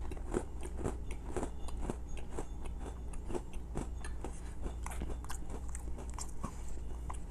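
A person chewing a crunchy chocolate sandwich cookie with a lemon filling close to the microphone: irregular crunching clicks, about two a second.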